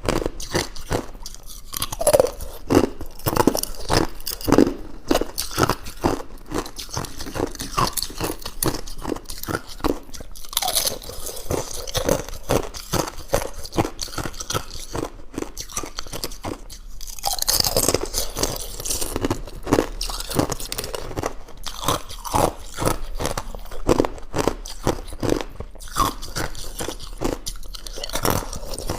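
Thin ice being bitten and chewed close to the microphone: continuous crisp crunching and crackling, many bites and chews a second.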